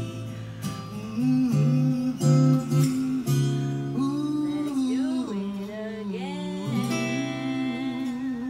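Acoustic guitar playing with a man's voice singing along.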